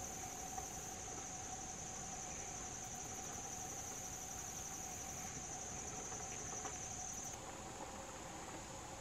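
Faint, steady chorus of trilling insects, high-pitched and continuous, over a lower steady tone; the high trill shifts slightly about seven seconds in.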